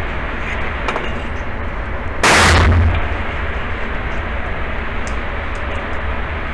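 A single pistol shot about two seconds in, loud enough to clip the recording, ringing off the walls of an indoor range, over a steady hiss.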